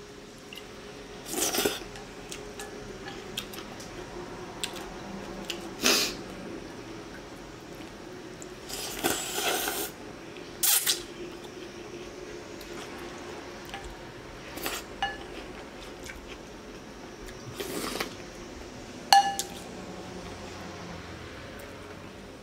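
Someone eating a bowl of pho: short slurping and sucking bursts of noodles and broth every few seconds, one longer than the rest, with chopsticks and a spoon clicking against a glass bowl and one sharp, ringing clink near the end.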